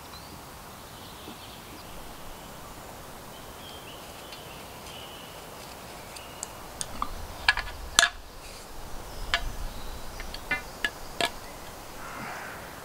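Quiet woodland background with faint bird chirps, then a scatter of sharp clicks and knocks in the second half, the loudest about eight seconds in, as a tape measure is handled between wooden posts.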